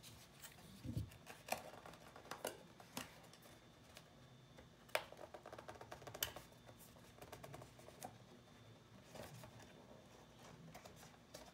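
Faint handling of a cardboard product box: scattered light clicks and scrapes as fingers pick at its edge, about eight of them, irregularly spaced.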